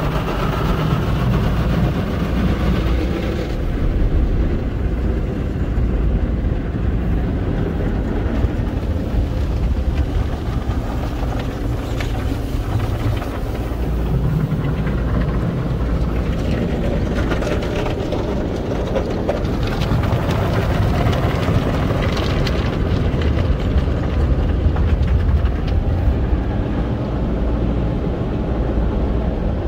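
Belanger conveyor car wash tunnel heard from inside the car: a steady low rumble of machinery and spraying water against the car, with a few short knocks along the way.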